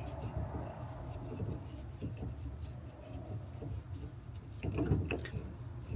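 Small clicks and scraping of a hand-turned T25 Torx bit backing a screw out of a plastic console panel, with no power tool running.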